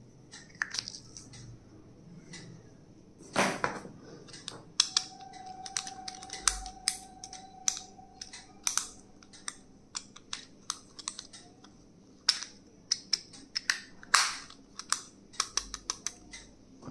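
Close clicks, taps and light rustling as plastic stationery items and their packaging are handled and unpacked, with a faint steady tone for about four seconds in the middle.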